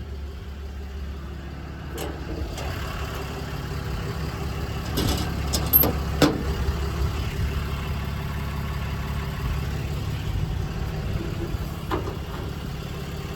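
6.7 L Cummins inline-six turbo diesel idling steadily, with a few short knocks and clicks about two seconds in, around five to six seconds in, and near the end.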